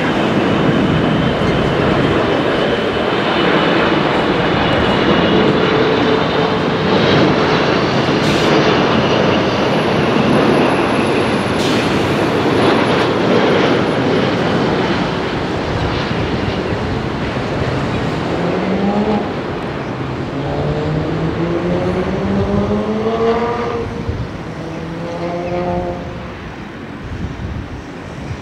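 Airbus A330 jet airliner landing: loud, steady jet engine noise on the approach and through touchdown. In the last third it grows quieter, and several rising whines come in, an engine pitch climbing as the aircraft rolls out on the runway.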